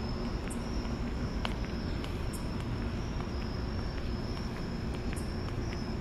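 Crickets trilling in a steady high chirr over a constant low rumble of city traffic, with faint scattered footsteps on pavement.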